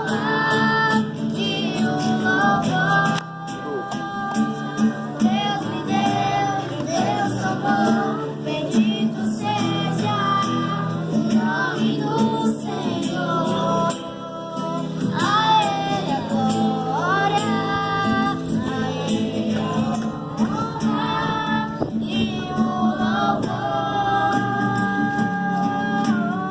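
A song: a voice singing a melody in long held notes over steady instrumental backing.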